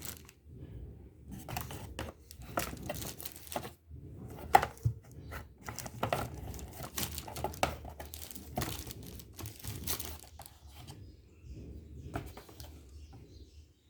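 Keyboard packaging being unwrapped and handled: irregular crinkling and rustling with scattered sharp clicks, quieter near the end.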